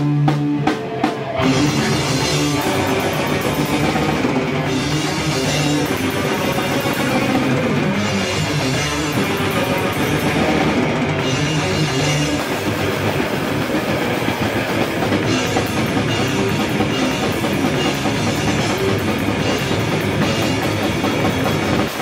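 A heavy metal band playing live, with a drum kit and cymbals pounding under electric guitar. It opens with a few separate hits over a held chord, then the full band plays on steadily.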